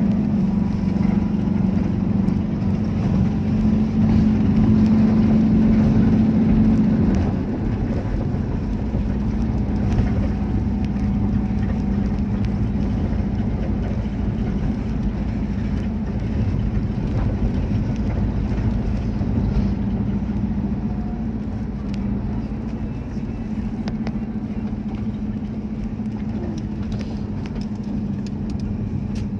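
Car engine drone and road noise heard from inside the cabin while driving, steady, easing slightly about seven seconds in.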